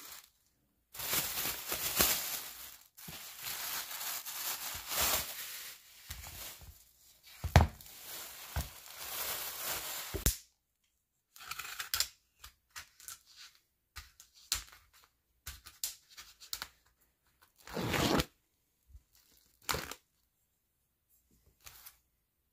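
Thin plastic grocery bag rustling and crinkling steadily for about ten seconds as a shrink-wrapped tray of chicken is pulled out of it, then scattered short crinkles and handling noises, with a louder rustle near the end.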